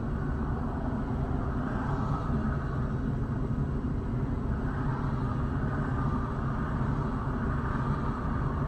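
Steady low rumble of highway traffic, with passing vehicles swelling and fading every few seconds.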